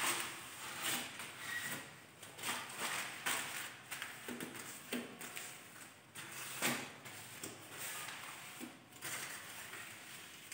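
Irregular knocks, clicks and rubbing from things being handled and wiped on a glass TV stand, with one sharper knock about two thirds of the way through.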